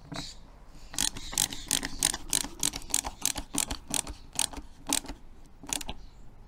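Ratcheting screwdriver clicking in an even run, about four clicks a second, as a screw is driven into a door retaining catch. The clicks stop near the end.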